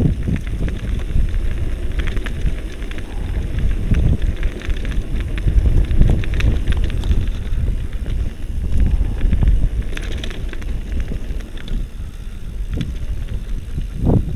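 Mountain bike riding over a rough dirt and rock trail: the frame and chain rattle, with scattered knocks from the tyres over stones and heavy wind buffeting on the microphone.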